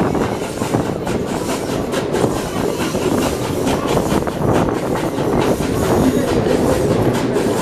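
Steam train running, heard from an open carriage window: a steady, loud rush of running noise with irregular clicks and knocks throughout.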